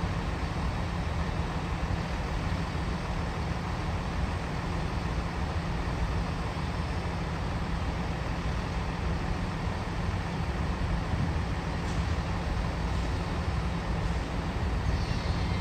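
Steady low rumble of an LNER Azuma high-speed train moving slowly along the platform.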